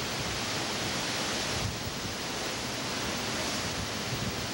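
Hurricane-force wind with driving rain, a steady rushing noise with no breaks.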